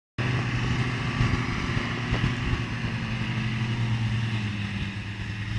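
Car engine running steadily, a low even hum with a hiss above it.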